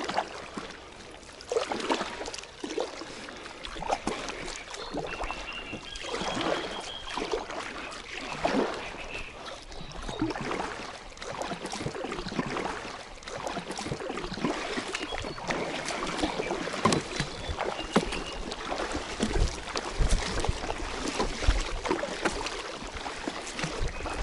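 Kayak paddle strokes splashing in shallow, weedy water, a stroke about every two seconds. Low rumbling joins in over the last few seconds.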